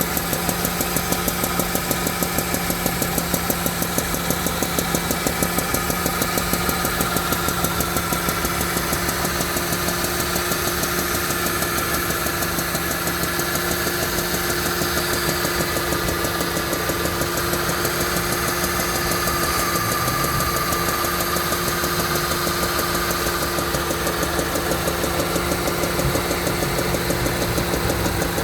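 Mercedes-Benz C-Class petrol engine running steadily with a rhythmic clacking knock throughout. It was first taken for engine damage, but the cause was a spark plug whose ceramic insulator had come loose.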